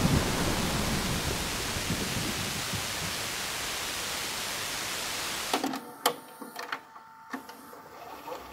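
Steady rain hiss, gradually thinning, that cuts off suddenly about five and a half seconds in. It gives way to faint videotape-style static with a few sharp clicks and a faint hum.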